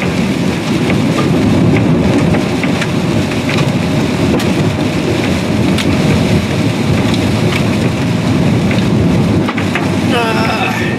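Hail pelting a car's roof and windshield, heard from inside the cabin while driving: a dense, steady clatter with sharper cracks from individual stones.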